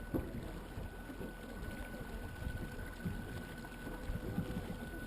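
Electric boat under way: a steady thin whine over low water noise from the hull, with a few soft knocks.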